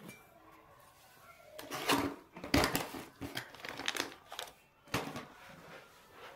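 Handling noise from a set of miniature steel toy utensils and their plastic packet: rustling and crinkling with light knocks, in a few bursts between about one and a half and five seconds in.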